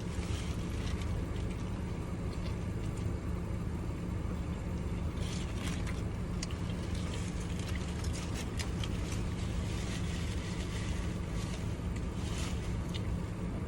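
Steady low hum of a car engine idling, with a few faint clicks scattered through.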